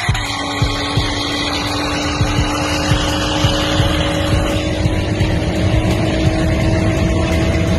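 Car engine running at a steady highway cruise, heard from inside the cabin with road noise, its pitch rising slowly.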